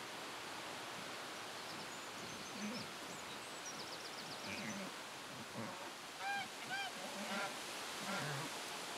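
Domestic geese honking: about four short honks in quick succession in the second half, over a faint steady outdoor background.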